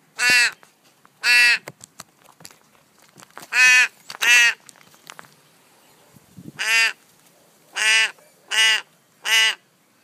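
Young raven giving eight short, loud, nasal begging calls in twos and threes with pauses between, asking to be fed more.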